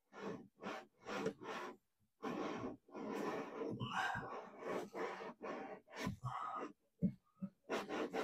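Bronze Blakes seacock plug being lapped into its valve body with valve grinding paste: a series of gritty rasping strokes as the plug is twisted back and forth, quickening to about three a second near the end.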